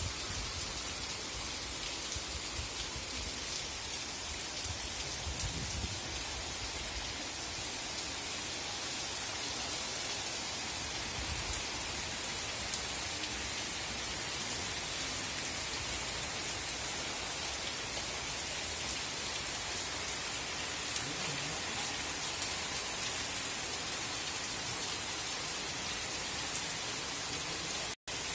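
Steady rain falling on paved ground and rooftops, an even hiss throughout, with a low rumble in the first few seconds. The sound cuts out for a moment near the end.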